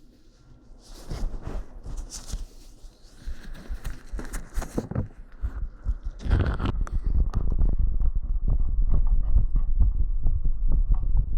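A microphone rubbing and rustling against clothing, then, about six seconds in, a person's heartbeat picked up through a microphone pressed to the chest: loud, steady low beats, raised after a set of squats.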